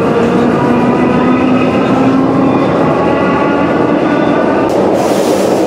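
Sprague-Thomson metro car running on the rails, heard from inside the car, with the whine of its traction motors and gearing drifting slowly in pitch over the rumble. A hiss rises over it near the end.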